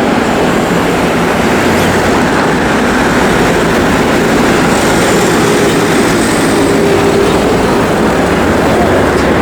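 Loud, steady rumbling vehicle noise with no distinct events.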